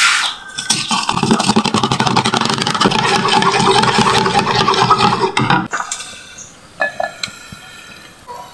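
A fork beating raw eggs in a plastic bowl: a fast, steady clatter of the fork against the bowl for about five seconds, stopping abruptly.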